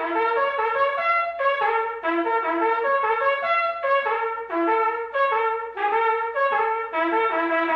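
Background music: a trumpet melody of short notes moving up and down in pitch, with a longer held note near the end.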